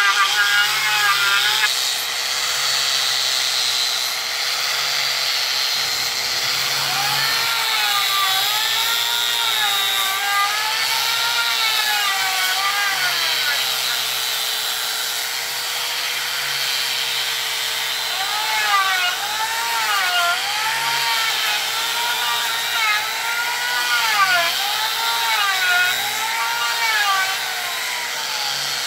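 Electric angle grinder fitted with a foam-backed sanding disc, running and sanding a solid jackfruit (langka) wood door. Its motor whine holds steady, with higher tones wavering up and down in pitch about once a second.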